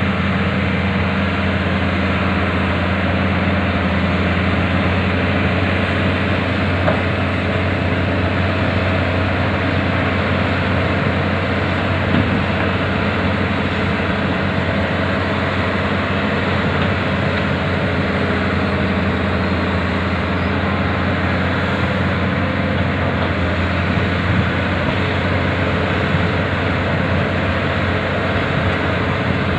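Diesel engine of a Hitachi hydraulic excavator running steadily under load as the machine works itself out of deep mud, with a few faint knocks.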